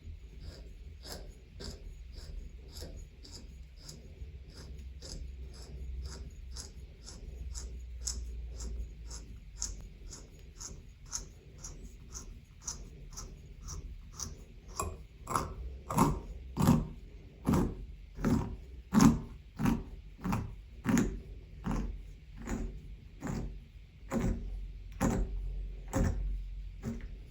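Threaded shower valve escutcheon sleeve being screwed on by hand over taped, greased threads: a long run of short rubbing, grating strokes, about one and a half a second, growing louder from about halfway through.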